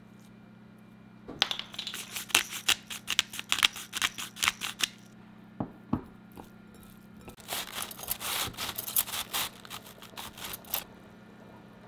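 Quick, crisp rasping strokes from a cabbage head being shaved into thin shreds with a hand-held slicer, in the second half. An earlier spell of similar crisp tearing strokes comes from food being torn by hand, and two sharp clicks fall between the spells.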